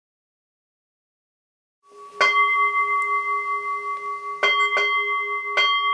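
A bell struck four times, ringing on in long, steady, layered tones: once about two seconds in, after silence, then twice in quick succession and once more near the end.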